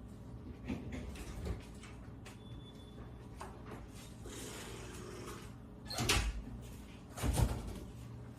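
Parts being handled and set down on a workbench: a few light knocks, a scraping, rustling stretch in the middle, then two louder thumps about a second apart near the end.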